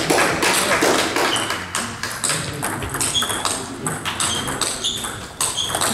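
Table tennis balls bouncing on tables and struck by bats: a quick, uneven scatter of light clicks and short high pings from several tables at once.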